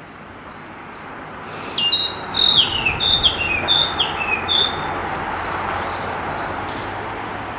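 Male narcissus flycatcher singing one phrase, about two seconds in: a quick run of clear, whistled notes, many of them sliding down in pitch.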